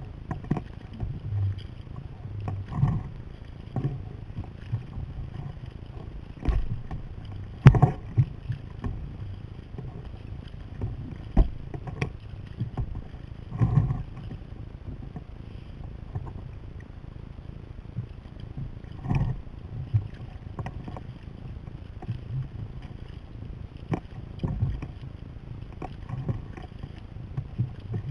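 Touring kayak being paddled: irregular splashes and knocks of the paddle strokes against water and hull every second or two, over a steady low rumble.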